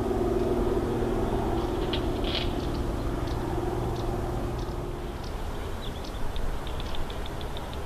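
Steady drone of a distant engine that fades out about halfway through, with birds giving short, high chirps here and there.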